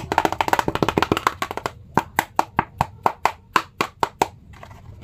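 A quick run of sharp clap-like hits, thinning after about two seconds into single hits about four a second, which stop a little after four seconds.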